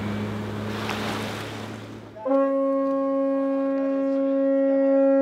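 Outboard motor of a small boat running, with the rush of water and wind. About two seconds in it cuts off, and a single long, steady horn-like note starts and holds.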